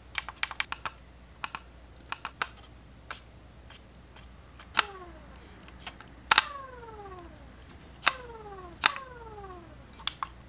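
Logitech MX Anywhere 3 mouse clicking: a run of quick, light clicks from its buttons and scroll wheel, then four sharp clicks from about five seconds in, each followed by a falling whir under a second long as the metal MagSpeed scroll wheel is flicked and spins down. Two more clicks come near the end from the side buttons.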